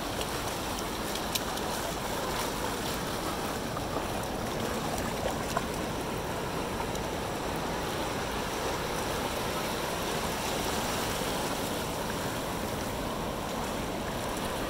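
Ocean surf washing over the shallows: a steady rushing of small breaking waves and moving water.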